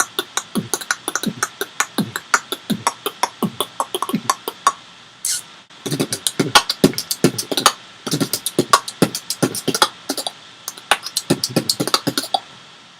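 Beatboxing: a fast run of mouth-made percussive hits, kicks and snares at several strokes a second. They break off briefly about five seconds in, then start again.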